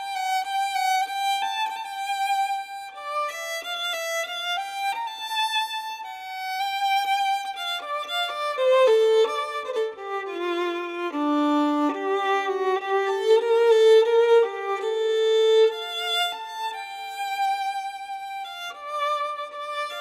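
Background music: a violin melody of held notes moving stepwise, sinking to its lowest notes about halfway through and then climbing again.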